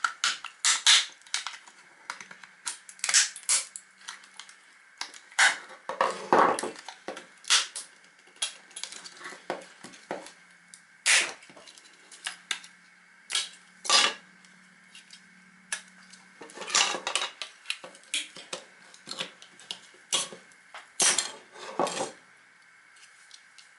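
Irregular clicks, knocks and clatter of hard plastic and small metal parts as an electric hair clipper's case is pried open and its pieces are handled.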